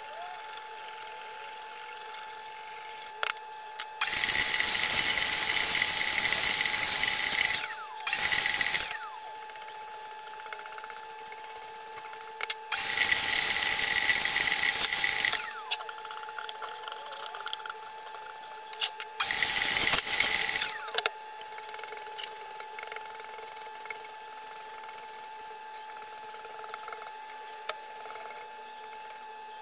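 Vacuum cleaner switched on in four short bursts to suck dust off the wooden board, the longest about three seconds. Each time it is switched off, the motor's whine falls away as it winds down.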